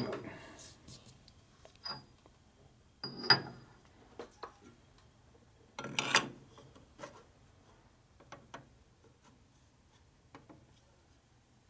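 Steel tooling and a machinist's precision level being handled and set down on the steel ways of a metal lathe: a string of metal clinks and knocks, the loudest about three and six seconds in, one with a short high ring.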